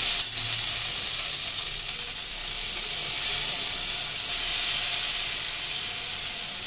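Maggi noodles frying in oil in a kadai, a steady sizzle as they are stirred with a spatula. About four seconds in, the masala mixed with water is poured onto the hot noodles and the sizzle briefly grows louder.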